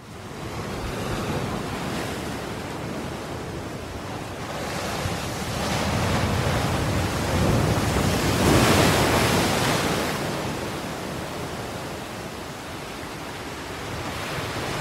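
Ocean waves washing in, a steady rush that swells to its loudest around the middle and eases off again.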